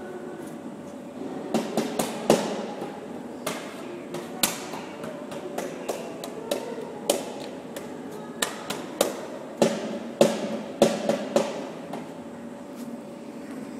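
Irregular metallic knocks and taps at a steel workbench, about twenty of them, starting about a second and a half in and stopping near the end, some ringing briefly after the blow.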